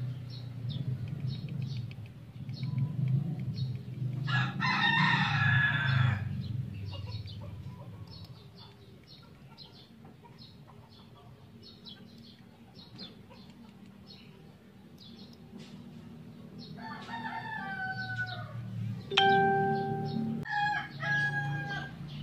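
A rooster crowing about four seconds in and calling again near the end, with quick high bird chirps repeating a few times a second throughout. A sharp knock with a short ring, the loudest sound, comes near the end.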